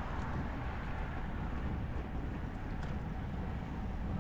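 Steady wind and road noise from riding a road bicycle in a group.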